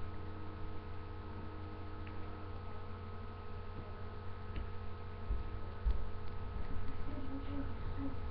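Steady electrical mains hum, with a few faint low thumps about five to six seconds in.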